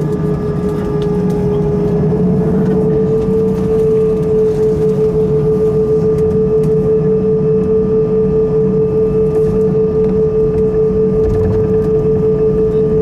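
Airbus A320 jet engines heard from inside the cabin while taxiing: a steady whine over a constant low rumble. The whine rises slightly in pitch about two to three seconds in and then holds.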